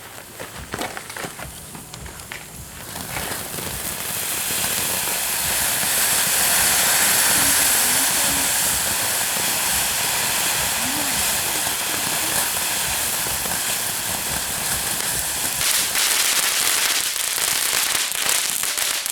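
Consumer ground fountain firework spraying sparks: a steady hiss that builds over the first few seconds and holds, then turns to rapid crackling near the end.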